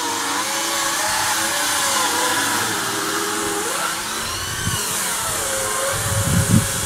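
A motor drones steadily in the background, its pitch wavering and rising and falling once about two thirds of the way through. A low, uneven rumble joins near the end.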